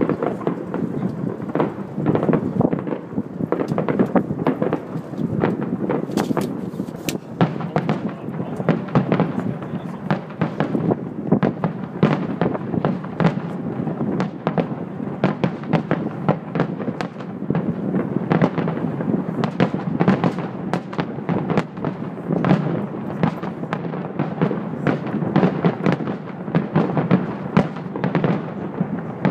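Fireworks display in a dense, continuous barrage: many shell bursts and crackling bangs following one another several times a second, with no pause.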